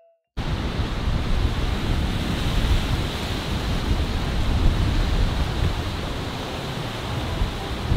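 Strong wind blowing on the microphone: a loud, steady rushing noise with a flickering low rumble that cuts in suddenly just after the start.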